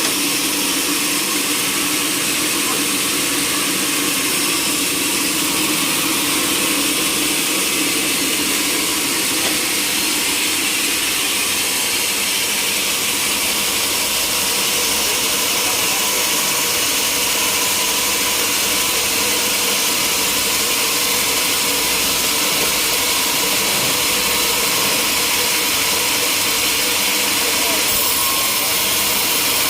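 Sawmill machinery running steadily: a continuous engine-like drone with a strong high hiss and a few steady tones, unchanging in level.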